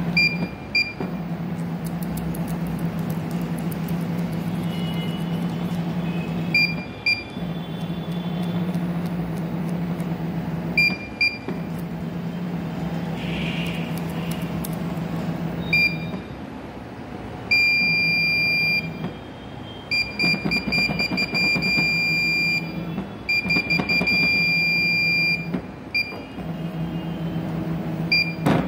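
Nema 34 stepper motor running with a steady hum, stopping briefly and starting again several times as it is driven forward and in reverse. Short double electronic beeps come at the stops, and three longer steady beeps sound in the second half.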